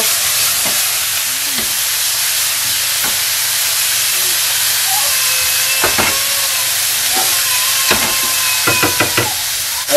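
Beef, onion, ají amarillo and garlic sizzling steadily in a very hot frying pan as they are stir-fried with a wooden spatula. A few knocks and scrapes of the spatula against the pan come in the second half.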